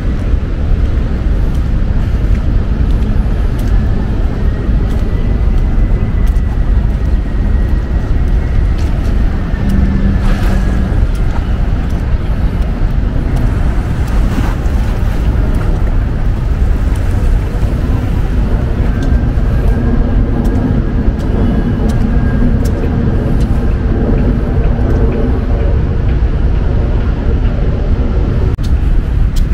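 City street traffic: a steady low rumble of passing vehicles, with a thin high squeal drawn out twice and a low engine hum in the second half.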